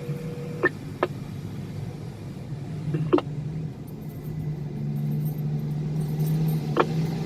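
Hitachi 2600 mining excavator's diesel engine running steadily with a low hum, building up about four to five seconds in, with a few sharp clicks.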